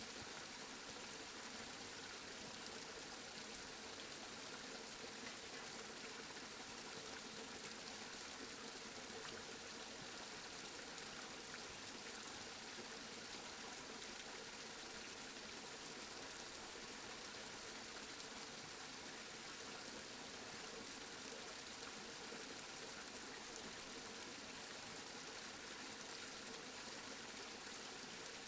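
Steady rain falling, an even hiss of many small drops with no change in intensity.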